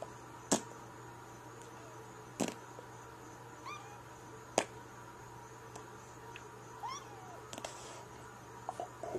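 A cat giving a few short, faint meows that rise in pitch, mostly in the second half. Three sharp knocks or taps, about two seconds apart in the first half, are the loudest sounds.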